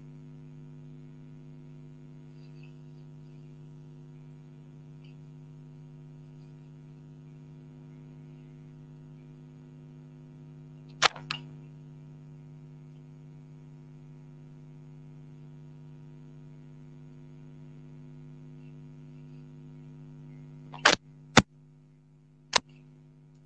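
Steady low electrical hum with several pitches, broken by sharp taps of a finger on a phone: one about halfway through and three near the end.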